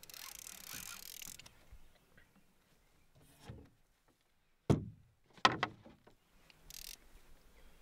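Spinning reel's drag buzzing briefly as a hooked lake trout pulls out line, then two sharp knocks of a wooden canoe paddle being set down against the canoe, almost a second apart.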